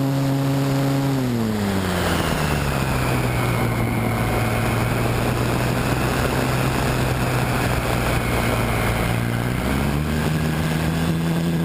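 Electric motor and propeller of a Multiplex Parkmaster RC plane, heard from a camera on the plane with airflow rushing over it. The motor's whine drops in pitch about a second in as the throttle is eased back, holds steady, then rises again near the end as the throttle is opened.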